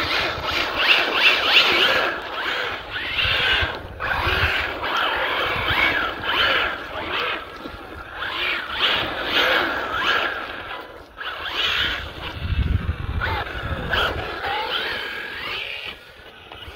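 Hobao Hyper 1/8-scale RC buggy's motor whining, rising and falling in pitch over and over as it accelerates and backs off, with a rasping hiss from its tyres on wet, gritty tarmac.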